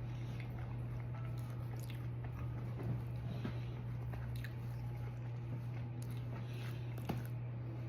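Someone chewing pizza rolls close to the microphone, with small mouth clicks here and there, over a steady low hum.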